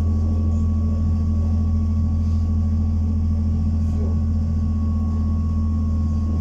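Inside a ZiU trolleybus cabin while it rides along: a steady deep electric drone with a thin, constant high whine over the rumble of the ride.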